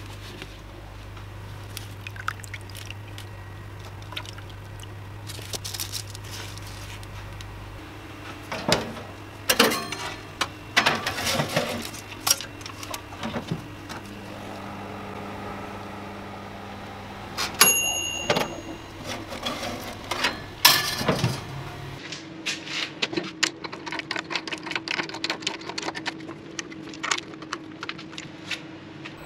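A run of handling noises: scattered clicks, knocks and clatters of objects being moved and set down, with a steady low hum in the first several seconds and a dense patter of small ticks near the end.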